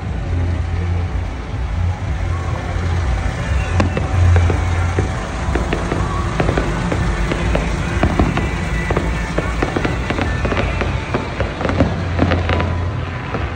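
Big-rig truck engines idling with a steady low rumble, overlaid by many sharp pops and cracks that come thicker in the second half, with music in the background.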